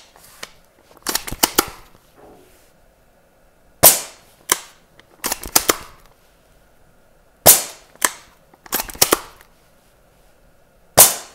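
Amoeba Striker AS-01 spring-powered bolt-action airsoft sniper rifle fired three times into a chronograph, each shot a sharp crack a few seconds apart. Between the shots come quicker clusters of smaller clicks as the bolt is worked to cock the rifle for the next shot.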